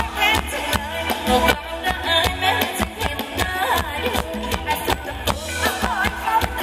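Live band playing Thai ramwong dance music, with a steady beat over strong bass and a melody line on top.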